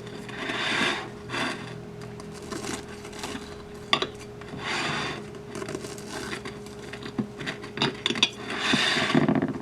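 Kitchen handling sounds: three scraping, rubbing strokes about four seconds apart, with light clicks and clinks of cutlery against dishes.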